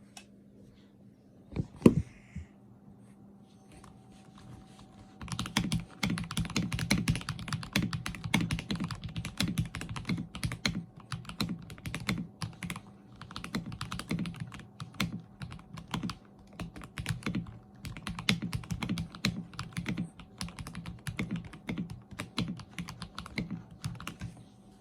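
Typing on a NovelKeys NK87 mechanical keyboard with Akko CS Matcha Green switches lubed with Krytox 205g0 and clone GMK keycaps. A single sharp knock comes about two seconds in, then fast, continuous keystrokes start about five seconds in and run on.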